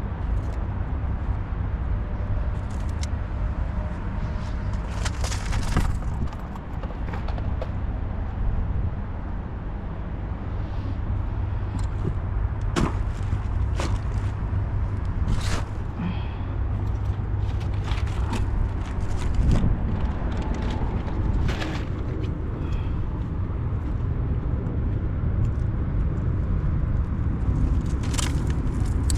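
A steady low rumble, with scattered sharp clicks and knocks.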